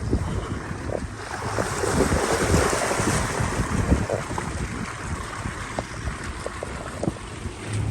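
Outdoor wind rushing and buffeting the microphone, with short low knocks and crackles throughout, swelling a little about two seconds in.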